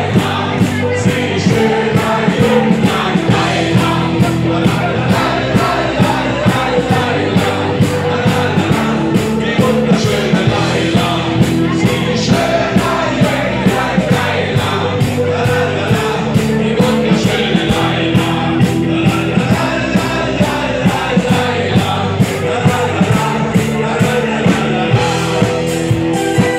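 A five-piece live band plays amplified rock-style party music over a PA: vocals over electric guitar, bass and drums with a steady, driving beat.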